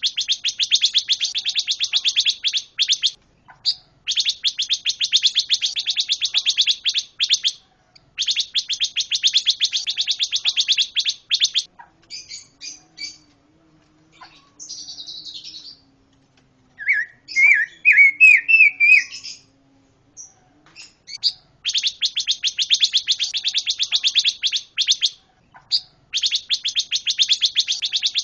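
Pancawarna songbird singing: long runs of very fast trilled notes, each run lasting a few seconds with short breaks between. Midway the trills give way to scattered chirps and a louder warbling phrase, then the fast trills resume.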